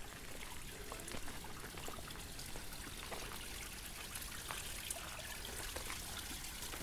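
Faint, steady trickle of water from a small stone-walled spring, with a few light clicks.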